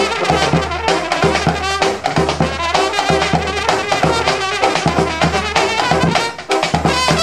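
Serbian brass band playing a rumba: trumpets and tenor horns carry the tune over a tuba bass line, with a bass drum and drum kit keeping the beat.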